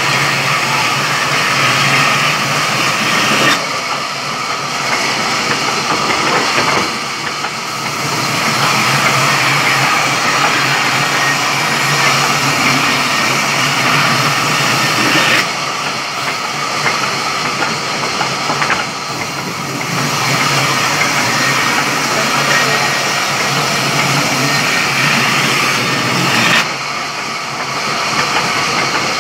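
Sawmill wood-cutting saw running steadily while cutting logs, with a steady low hum under a broad whining rasp. The sound drops a little and comes back up about three times, roughly every eleven or twelve seconds.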